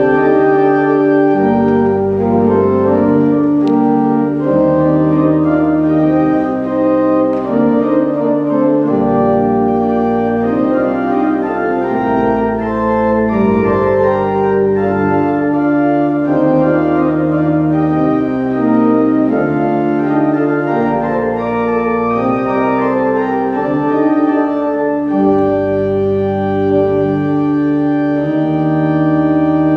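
Church organ playing slow held chords over low pedal notes, the harmony changing every second or two.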